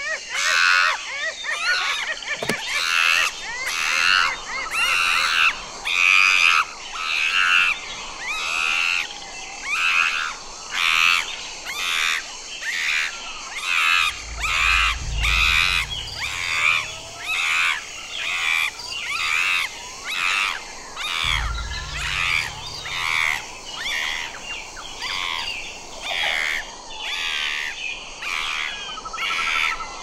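Chimpanzee giving a long, steady series of repeated calls, roughly one a second. A low rumble comes in twice near the middle.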